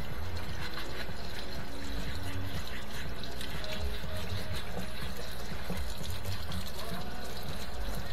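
Water pouring and trickling steadily as the dishwasher's clogged rinse-aid compartment is filled and rinsed out.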